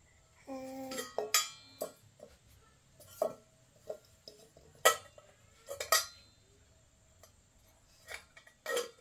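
Hard objects clinking and knocking against each other irregularly, about a dozen sharp strikes with brief ringing, and a short pitched tone near the start.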